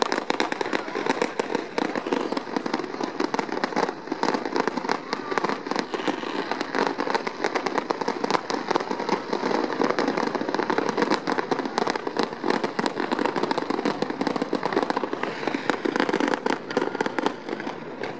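Fireworks display going off without a break: a dense, continuous crackle of many small sharp bangs from showers of sparks and bursting shells.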